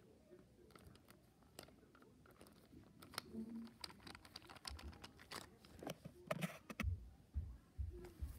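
Hands handling a plastic toy dinosaur figure on a fleece blanket: faint scattered clicks, taps and rustles, growing busier partway through, with a few low thumps near the end.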